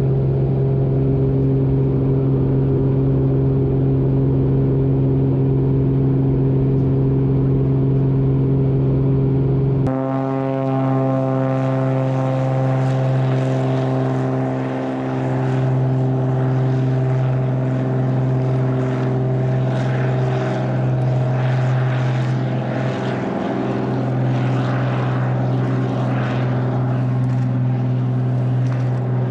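Cessna 185 floatplane's IO-550 engine and propeller at takeoff power, a steady drone heard inside the cabin for about ten seconds. It then changes abruptly to the plane heard from outside as it runs across the water on its floats, the propeller drone mixed with the hiss of spray.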